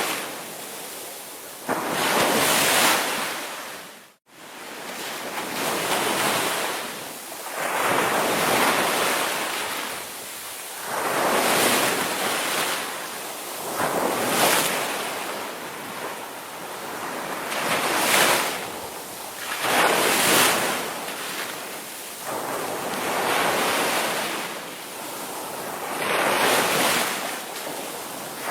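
Ocean surf: waves breaking and washing in, swelling and fading every two to three seconds. The sound drops out abruptly for a moment about four seconds in.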